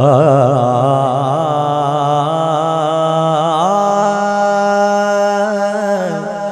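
Wordless melismatic singing by a male naat reciter, an alaap in which the voice slides and wavers through ornamented held notes. It enters loudly at the start and settles onto a long steady note about halfway through.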